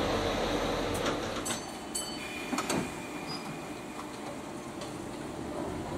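Ex-London Underground Standard stock electric train standing at a station platform: a steady hiss with a few sharp clicks and knocks in the first three seconds and a brief faint whine about two seconds in.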